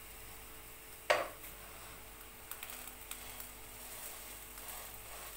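Zucchini fritters frying quietly in a pan, with a few light clicks of a utensil against the pan. About a second in there is one sharp, short sound that drops quickly in pitch, the loudest thing heard.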